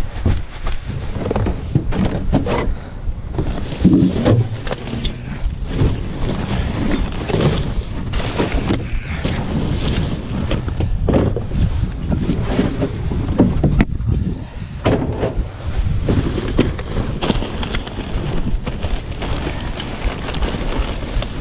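White plastic trash bags rustling and crinkling as they are pulled from a can and carried by hand, with irregular handling knocks and footsteps on grass. A low rumble of wind and body movement runs across the chest-mounted microphone.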